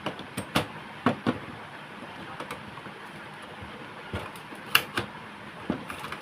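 Short sharp clicks and knocks of printer parts being handled inside an opened Epson L380 inkjet printer: a cluster in the first second and a half, and a few more from about four to six seconds in.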